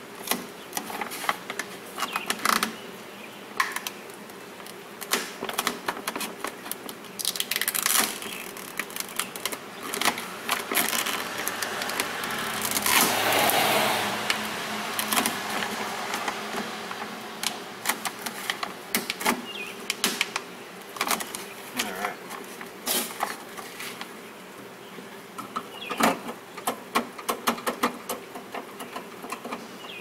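Plastic vapor barrier being peeled off a vehicle's inner door panel: the sheet crinkles and crackles in irregular bursts, with a longer, louder peel about halfway through.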